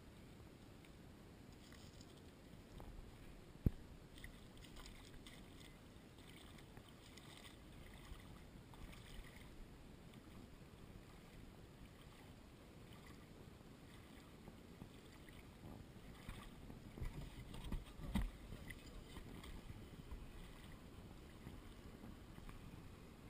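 Faint water lapping at a shallow gravel shore, with a low steady rush. There is one sharp knock about four seconds in and a few dull bumps near the end.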